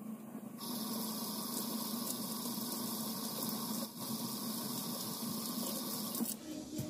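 Kitchen faucet running, its stream splashing over blue crabs being rinsed in a stainless steel sink; the water comes on about half a second in, briefly dips near the middle, and stops about a second before the end. A steady low hum runs underneath.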